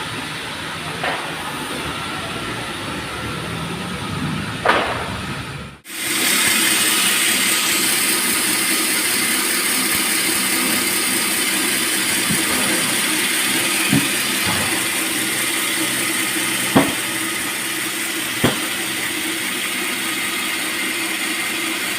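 Sawmill machinery running steadily with a strong hiss and a few short knocks. The sound breaks off abruptly about six seconds in and comes back louder and brighter.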